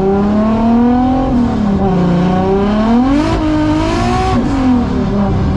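Nissan 240SX drift car's turbocharged engine heard from inside the cabin, revving up through the gears on a test drive of a newly fitted twin-disc racing clutch: the pitch climbs, drops back about a second in as it shifts, climbs twice more, then eases off near the end. A brief hiss rides over it in the middle.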